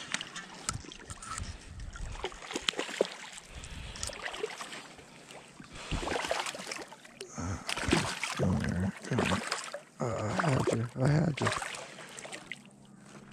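Spinning reel being cranked while a hooked smallmouth bass thrashes and splashes at the water's surface as it is played in; the splashing is heavier in the second half.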